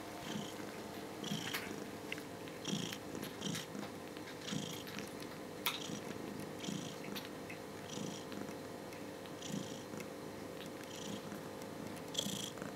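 A nursing mother cat purring while her kittens suckle, the purr swelling in pulses about once a second with her breathing.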